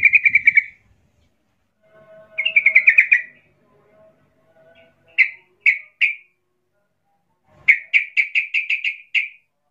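Yellow-vented bulbul calling in quick chattering trills. One rapid trill comes at the start and another about two seconds in, then three short separate notes around five to six seconds, and a fast run of about eight notes near the end.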